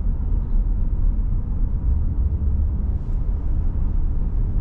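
Steady low rumble of a half-ton pickup truck driving in traffic: engine and road noise.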